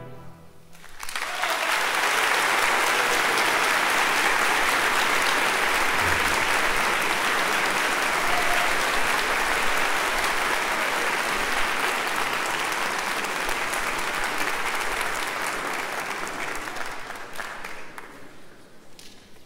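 Concert-hall audience applauding as the orchestral music stops: the applause starts about a second in, holds steady, then thins out and dies away near the end.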